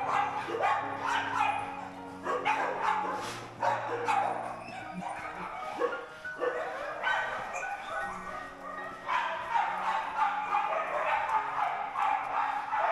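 Dogs barking and yipping over background music with steady held notes. The barking is busiest at the start and again in the last few seconds.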